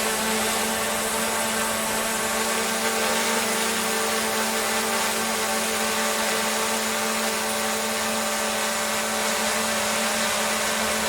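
Steady, unbroken motor hum with a constant pitched drone, like a small electric motor running.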